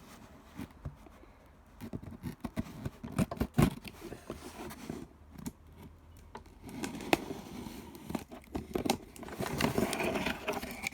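Cardboard shipping box being cut and opened by hand: irregular scraping, tearing and crinkling of the packaging, with scattered knocks, the sharpest about three and a half seconds in.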